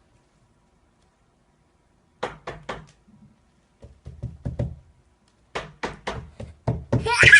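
Knocking in a small room, in bursts after a pause: three quick knocks, then a softer run of about four, then a faster run of about seven. A short high-pitched sound comes in over the last knocks near the end.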